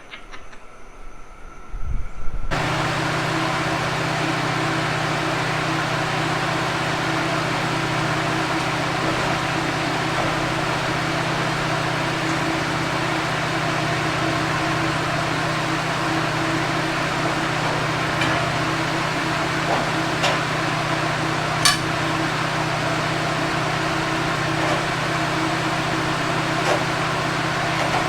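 An engine running steadily, cutting in abruptly about two and a half seconds in, with a few faint clicks over it.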